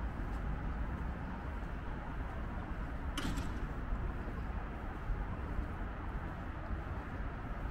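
Steady city background noise, a low hum of distant traffic, with one brief sharp sound about three seconds in.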